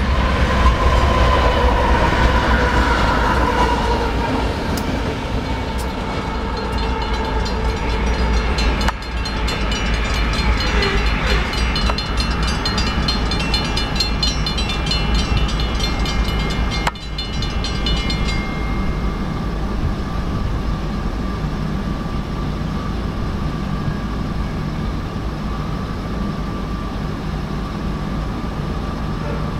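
Three diesel freight locomotives running light at high speed pass close by, engines and wheels rumbling over the rails. The high end of the sound fades after about 18 seconds as they move away.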